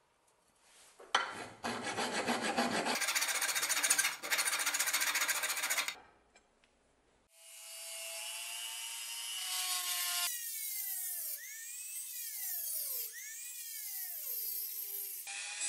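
Handheld rotary tool with a small cutoff disc cutting a slot in a brass knife-guard plate; its whine dips and recovers in pitch again and again as the disc bites into the brass. Before it, starting about a second in, about five seconds of rough scraping.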